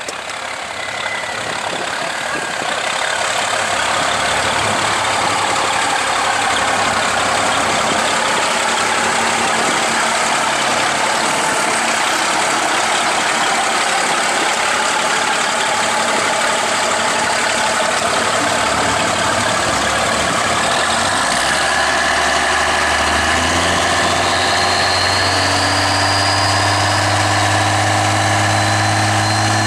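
Cummins 5.9-litre turbo-diesel in a Dodge Lil' Red Express drag truck with straight-up exhaust stacks, running steadily and loud. In the last several seconds its note settles into a firm, steady low drone as it is held up on the starting line, the stacks blowing thick black smoke from heavy fuelling.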